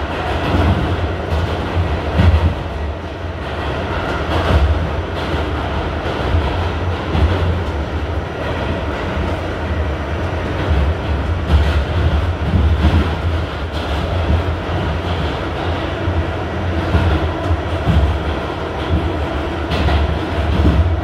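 R68 subway train running through a tunnel, heard from a ride aboard: a steady, loud low rumble with a haze of wheel and track noise, and now and then a brief clack from the wheels.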